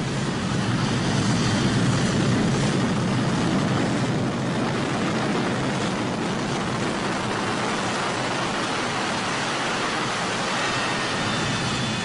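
Jet engine running with a steady rushing noise, a little louder about two seconds in, and a faint high whine coming in near the end.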